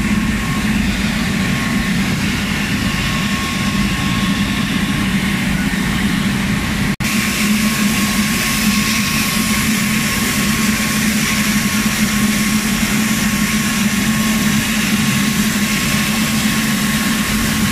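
Rice mill machinery running: a loud, steady mechanical din with a constant low hum and a faint high whine over it, broken by a momentary dropout about seven seconds in.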